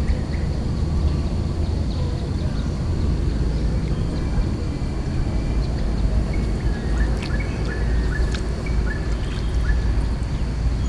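Birds chirping in short calls, mostly in the middle and later part, over a steady low rumble.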